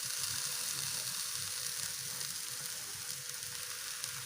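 Washed freekeh sizzling steadily in hot ghee in a frying pan as it is sautéed.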